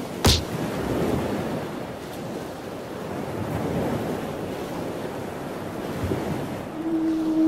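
Steady rushing background noise like wind or distant surf, with one sharp click about a quarter of a second in. Near the end a low, held, horn-like tone with overtones begins.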